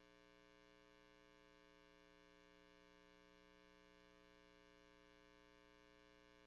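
Near silence with a faint, steady hum made of many even, unchanging tones, like electrical hum in the audio line.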